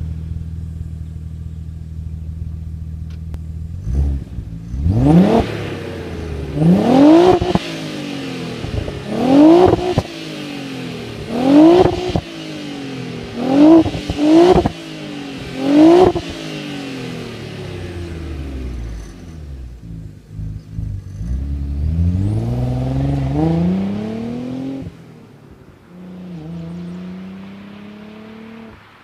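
2000 Audi B5 S4's 2.7 L twin-turbo V6 through 3-inch downpipes and a catless Milltek turbo-back exhaust with resonator and muffler: idling, then revved in seven sharp blips, then pulling away, rising in pitch, with a gear change near the end as it fades. The owner says this recording revealed a rattle and a small exhaust leak.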